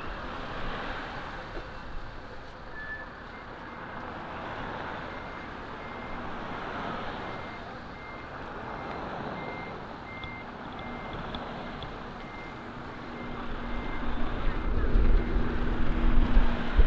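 A vehicle's reversing alarm beeping at a high pitch, evenly, about one and a half beeps a second. Its engine runs underneath and grows louder over the last few seconds.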